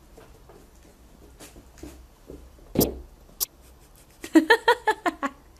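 A plastic basin knocks onto a wooden floor about three seconds in, with a lighter click just after and a few faint taps before. Near the end comes about a second of short, quick, high-pitched sounds.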